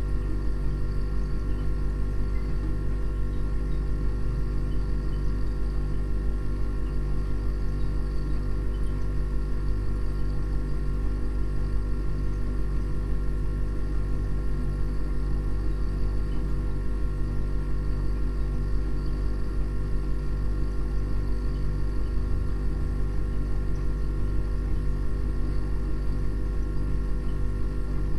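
Steady low drone: a deep hum with several unchanging tones layered above it, running without a break.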